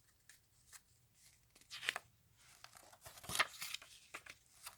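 Comic book being handled and its pages turned: soft, scattered paper rustles, a little louder about two seconds in and again past the middle.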